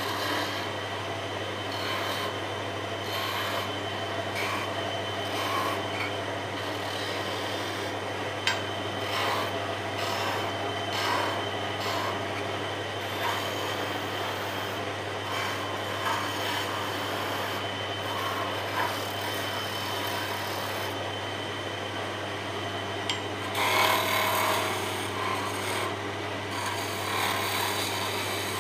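Wood lathe running with a steady low motor hum while a wide chisel cuts a spinning wooden spindle: a continuous scraping, rasping sound of the blade shaving the wood, with a few sharp ticks and a louder stretch of cutting near the end.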